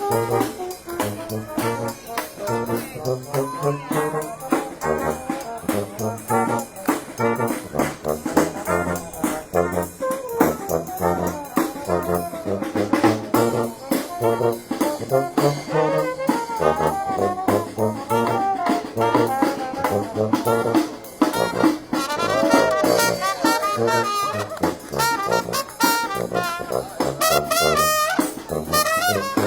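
Live street brass band playing an upbeat jazzy tune, with trumpets and trombones over a steady bouncing bass line.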